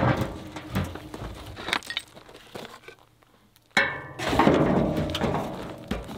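Wooden scrap, including an old wooden chair, being lifted and dropped into a burn barrel: scattered knocks and clatter of wood against wood and the barrel. There is a short lull, then a sudden loud clatter with a brief ringing just before four seconds in.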